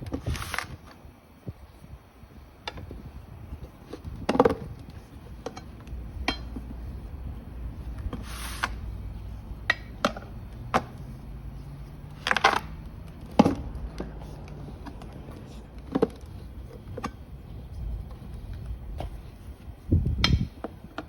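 Metal tyre levers clinking, knocking and scraping against a scooter's rear wheel rim as a new tyre's second bead is worked on, in scattered separate strikes several seconds apart.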